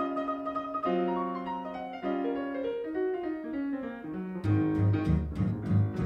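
Boogie-woogie piano intro: held chords and a descending run. About four and a half seconds in, a steady beat with a heavy bass line sets in.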